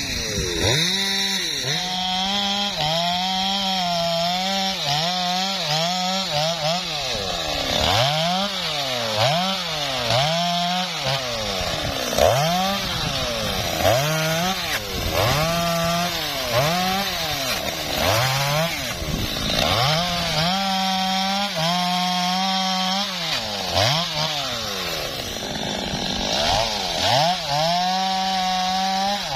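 Stihl two-stroke chainsaw running at high revs throughout, its pitch dipping and climbing back every second or so as it is throttled and cutting, typical of limbing branches from a felled tree.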